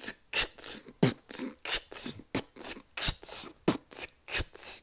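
Beatboxed mouth-drum beat: sharp hissing hits about three a second, some with a low kick, unevenly spaced, imitating someone with no rhythm.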